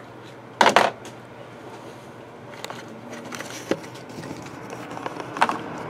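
Handling noises from a shrink-wrapped trading-card box being set in place and moved about: a loud scuff about half a second in, a shorter one near the end, and light knocks and rustles in between.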